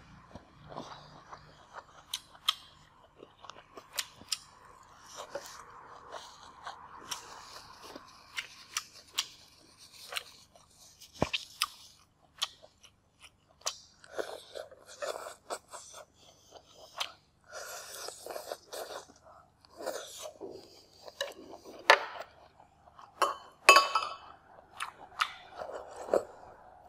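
Close-up chewing and crunching of crispy fried noodles, with wet mouth sounds and irregular crackles, and a few sharp louder clicks about two-thirds of the way in and near the end.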